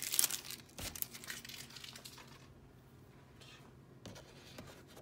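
Thin clear plastic accessory bag crinkling as it is handled, busiest in the first second, followed by a few light clicks and rustles that thin out into quiet.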